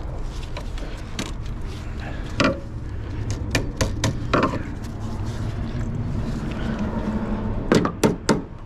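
Scattered sharp clicks and knocks of hand work on plastic and metal parts in a van's engine bay, the loudest few bunched together near the end, over a steady low hum.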